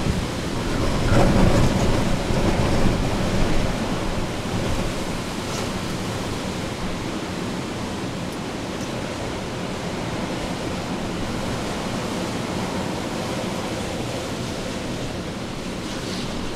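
Hurricane Ida's wind rushing steadily, swelling into a louder gust between about one and four seconds in, then holding even.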